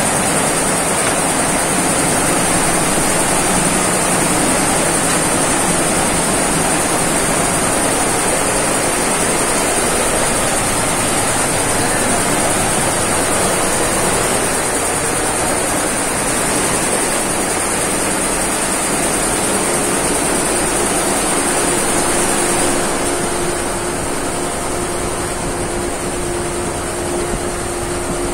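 Multi-head computerized embroidery machine running, a loud, dense, steady mechanical noise. A high steady whine stops about two-thirds of the way through, and a low steady hum comes in a little before that.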